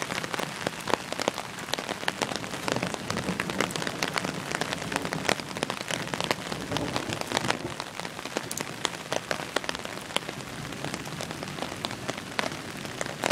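Steady rain falling during a thunderstorm, with many individual drops striking close by as sharp ticks.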